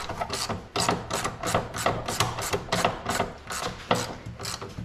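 Hand ratchet with a 9/16 socket worked back and forth on a lock nut, its pawl clicking in quick, even strokes, about four or five a second. The nut is not coming off: the bolt can be felt turning underneath along with it.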